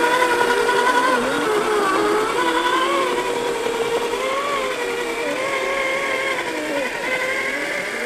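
Electric motor and geared drivetrain of a 1/10-scale RC crawler truck whining, its pitch rising and falling as the throttle is worked over rock.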